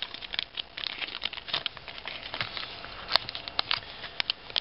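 Wrapper of a 2006 Upper Deck baseball card pack crinkling and crackling as it is torn open and the cards are slid out, with irregular crisp crackles and one sharp click about three seconds in.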